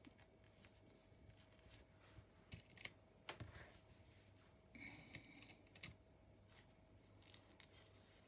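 Faint handling sounds of pinning lace onto card on a cutting mat: scattered small clicks and taps from the pins and fingers, clustered in the middle, over near silence.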